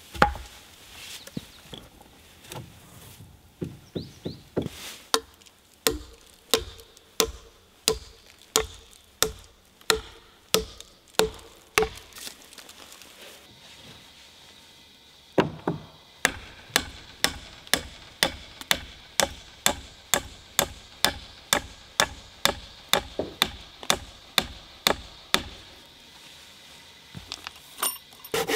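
A hand tool striking wood in steady, even blows, a little under two a second. A faint ringing note sounds with each blow in the first run. The blows stop for about three seconds midway, then start again at the same pace.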